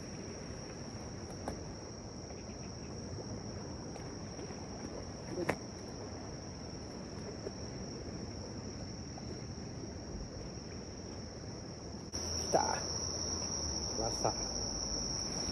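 Insects trilling: one steady, unbroken high-pitched note that gets louder after a cut about twelve seconds in, with a few faint knocks from fishing-tackle handling.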